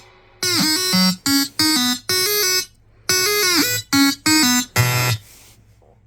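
Short electronic chime of pitched beeping tones, played twice: each run opens with a bending glide and then steps through four or five short notes, and the whole stops about five seconds in.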